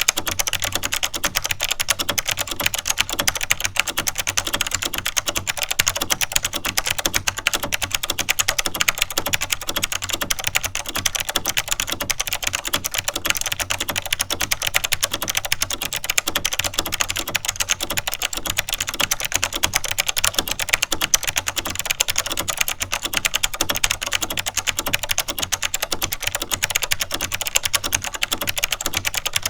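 Continuous fast typing on a vintage Chicony KB-5181 mechanical keyboard with clicky Monterey switches (SMK Alps-mount), a dense stream of sharp key clicks.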